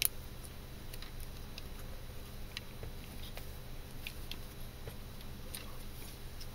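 Faint scattered metal clicks and taps from handling a Leatherman Surge multitool while fitting a jigsaw blade into its blade holder, over a steady low hum.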